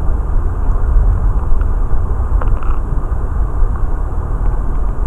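Flowing stream water heard by a camera submerged in its waterproof housing: a dense, steady low rumble, with a few faint clicks.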